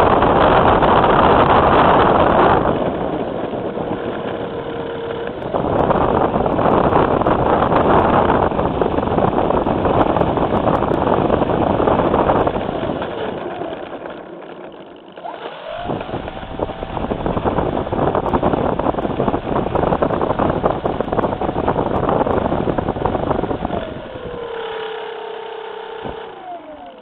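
Radio-controlled model plane heard from its own onboard camera while rolling on an asphalt runway: a loud rushing noise with a faint motor whine at times. Near the end the whine falls in pitch as the motor winds down and the noise fades.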